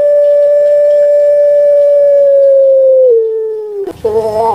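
Puter pelung, a Barbary dove (Streptopelia risoria), giving its long, thick 'kwok' call: one loud held note that slides lower about three seconds in, followed by a short rough burst near the end.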